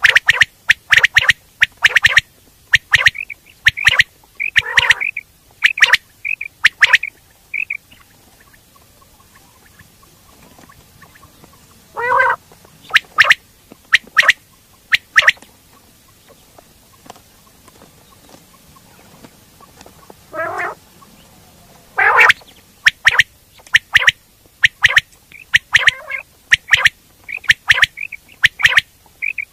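Coturnix quail calling: quick groups of short, sharp, high notes, broken by a few longer, lower, harsher calls. There are two quieter gaps of a few seconds in the middle.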